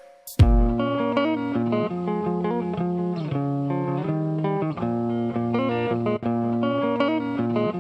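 Background music led by plucked guitar, starting about half a second in after a brief gap.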